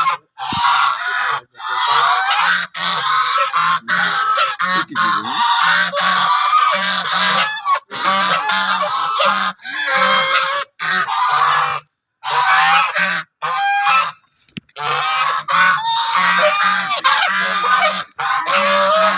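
A flock of geese honking loudly, many overlapping calls at once, broken by a few brief sudden gaps; the birds are giving defensive alarm calls at someone approaching.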